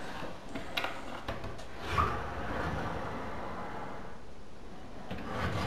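Wooden kitchen drawer holding stainless steel pots and lids being pulled open by hand, with a knock about two seconds in followed by a short sliding rumble.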